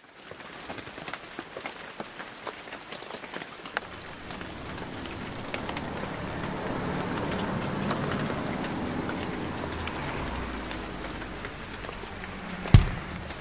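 Rain falling on a wet street, with many small drips ticking at first. A broader rushing noise swells in the middle and eases off again, and a single sharp low thump comes near the end.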